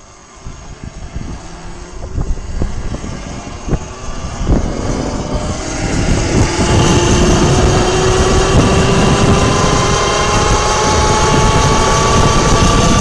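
The alternator-converted motor of a 72-volt homemade electric bike whines as it pulls away, getting louder and climbing slowly in pitch as speed builds, then running steady. Wind rush on the microphone lies underneath, with a few rattling knocks in the first few seconds.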